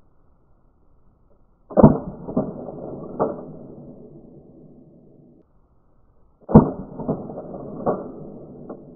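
Two shots from a Remington Model 11 12-gauge semi-automatic shotgun, about four and a half seconds apart. Each is a deep boom followed by a few sharper knocks and a long low rumble dying away over three to four seconds.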